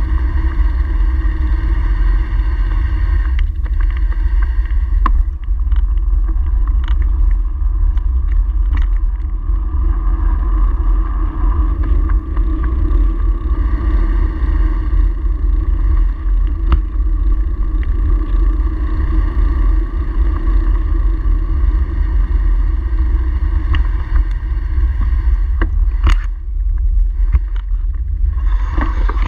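Wind and road noise on the microphone of a handlebar-mounted camera on a moving bicycle: a loud, steady low rumble with a faint constant hum above it. Occasional short clicks and knocks come through, with a cluster near the end.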